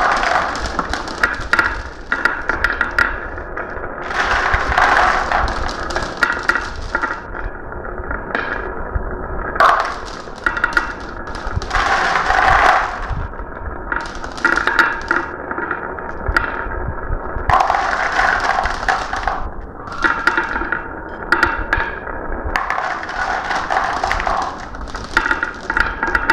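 Marbles rolling and clacking down a marble run: a steady patter of sharp clicks, with a louder rattling run every few seconds.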